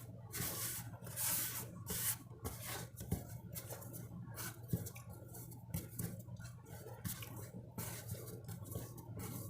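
Hands working sticky marshmallow slime, with irregular soft squishing, rubbing and small clicks.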